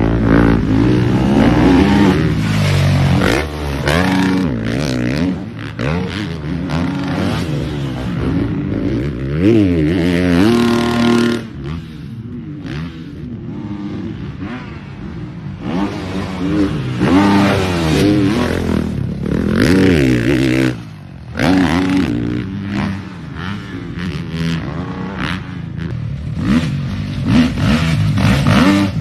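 GasGas 450 motocross bike's single-cylinder four-stroke engine revving hard, its pitch rising and falling again and again with throttle and gear changes. A little before the middle it drops to a quieter, steadier note for a few seconds before picking up again.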